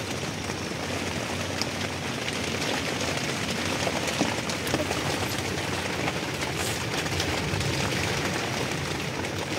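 Steady rush of heavy rain and storm wind, an even continuous noise with no breaks.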